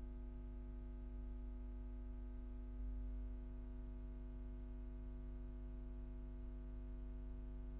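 Faint steady electrical hum with a low buzz and light hiss, unchanging throughout, with a slight low swell about three seconds in.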